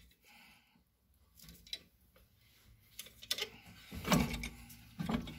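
Light metal clicks and knocks as a G-clamp is unscrewed and backed off a brake caliper. It is nearly quiet at first, with the clicks picking up about three seconds in and a louder knock about a second later.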